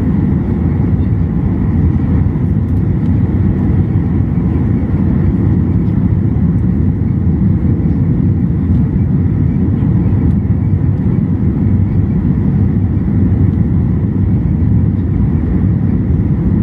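Steady low roar of an airliner's engines and rushing air during landing, with no rise or fall.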